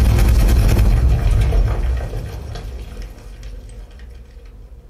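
Film sound effects played through a JBL Bar 9.1 soundbar: a heavy, deep rumble with dense crackling noise, fading away over the second half.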